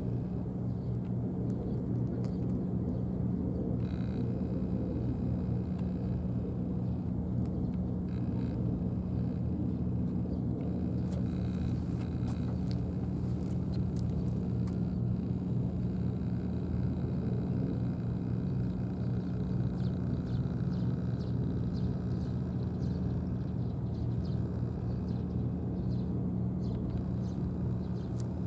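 A steady low mechanical hum, as of a motor running, with faint scattered ticks above it.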